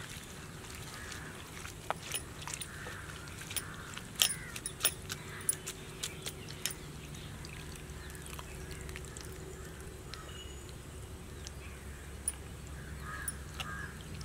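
Wet squelching and dripping from a hand squeezing water out of chopped banana blossom over a bowl of soaking water, with a run of sharp splashes and drips in the first half. A low steady hum and occasional animal calls run underneath.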